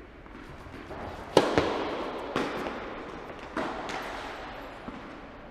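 Tennis rally on an indoor court: a handful of sharp pops from racket strikes and ball bounces, the loudest about a second and a half in, each echoing through the large hall.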